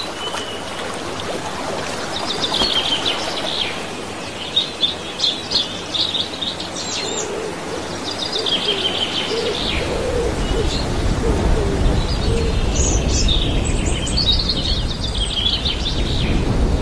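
Osprey calling: repeated runs of short, high chirping notes, each run lasting about a second. About halfway through, a low rumble comes in beneath the calls.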